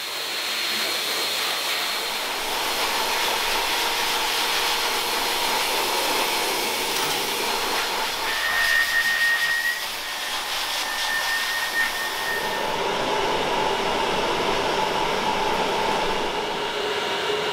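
Pet grooming dryer blowing a steady stream of air over a wet dog's coat, with two short high whistles near the middle. About two-thirds through the airflow sound changes, losing some of its highest hiss and taking on a steadier hum.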